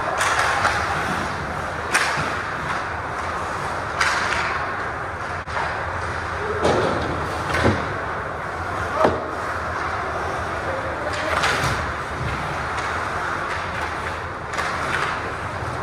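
Ice hockey play on an indoor rink: skate blades scraping the ice in hissing swells, with several sharp knocks of sticks and puck against each other and the boards.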